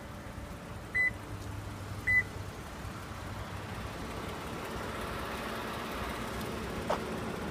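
Car's electronic warning chime beeping twice, about a second apart, over the faint steady idle of the 2015 Toyota Camry XSE's 3.5-litre V6.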